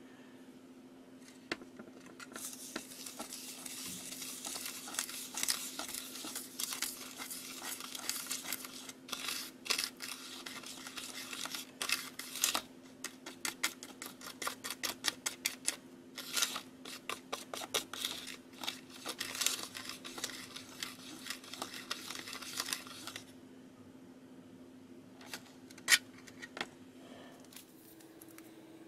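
Small plastic spoon stirring and scraping candy powder and syrup in a plastic tray: a rapid scratchy clicking that stops about two-thirds of the way through, mixing a Kracie Neruneru candy into a gel. One sharp click follows near the end.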